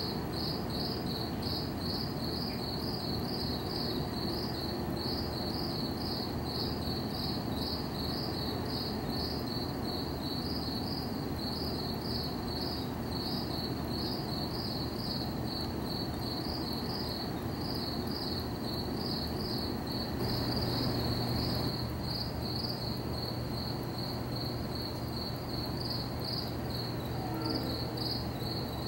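Crickets chirping steadily in a regular high-pitched pulse, about two to three chirps a second, over a steady low hum.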